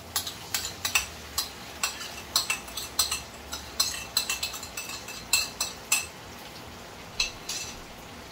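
Spoon scraping and tapping against a plate as seasoning is knocked off it into a pot: a quick run of clinks and scrapes that stops about six seconds in, with a couple more taps shortly after.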